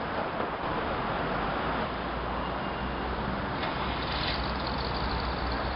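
Steady street traffic noise with a low engine hum that grows stronger in the second half.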